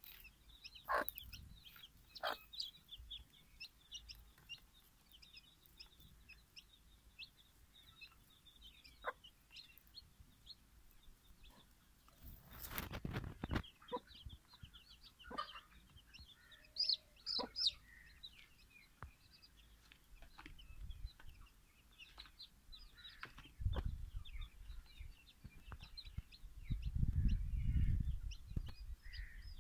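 A brood of young chicks peeping in short high cheeps all the way through, with a hen clucking now and then. A few sharp ticks and some low rumbles break in, the loudest near the end.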